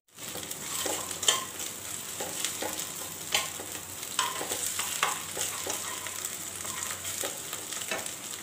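Spice paste of onion, garlic, ginger, cumin and green chilli frying in oil in a nonstick wok, sizzling steadily as a spatula stirs and scrapes it across the pan every second or so. This is the masala being fried down (kosha) before more spices go in.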